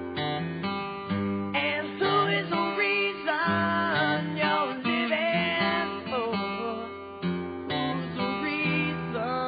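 Background music: a strummed acoustic guitar, with a singing voice coming in about a second and a half in.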